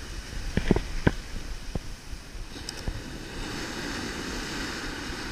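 Surf washing up the beach, with wind on the microphone. A few light clicks come in the first two seconds.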